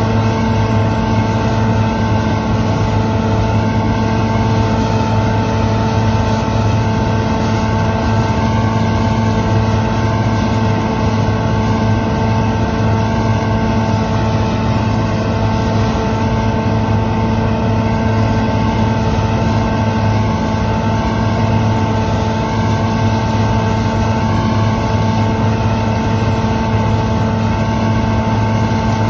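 Claas Lexion combine harvester running steadily while harvesting soybeans: an even, loud machine drone with a constant pitched hum and no change in speed.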